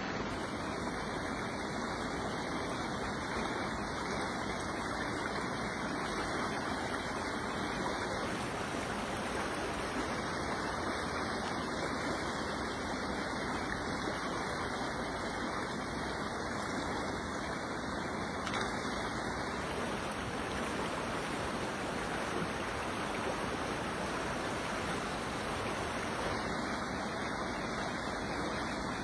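Steady rushing of a fast-flowing creek: an even hiss of moving water that never breaks.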